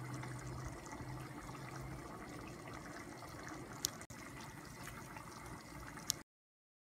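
Pot of cabbage broth for borscht boiling steadily, a continuous bubbling hiss. There are two sharp clicks, one near the middle and one just before the sound cuts off suddenly about six seconds in.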